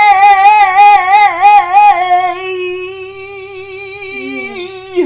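A woman singing unaccompanied, holding one long note with a wide vibrato that steadies and softens after about two seconds, then cuts off abruptly near the end.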